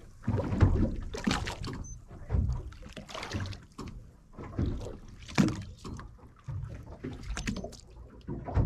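Water slapping and lapping against the hull of a drifting boat, in irregular splashes about once a second.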